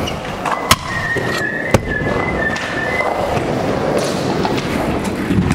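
Stunt scooter wheels rolling on a skatepark's concrete, with two sharp clacks about a second apart near the start and a thin high squeal lasting about two seconds.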